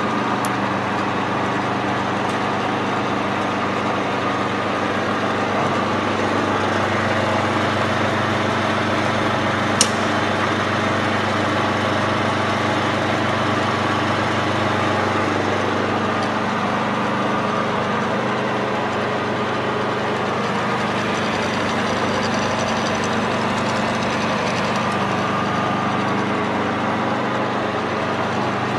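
Lubro Scharmann FU 700 universal milling machine running with a steady mechanical hum. A single sharp click comes about ten seconds in, and a faint high whine joins for a few seconds in the second half.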